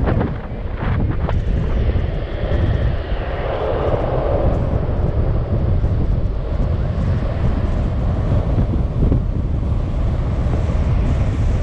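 Steady wind roar on the microphone of a downhill longboarder riding fast, with the rumble of the board's wheels rolling on asphalt.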